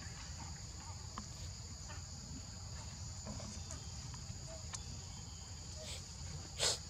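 Steady insect chorus of crickets or cicadas: two high, even, unbroken tones over a low rumble. Near the end comes one short, sharp, hissy burst of noise, the loudest sound.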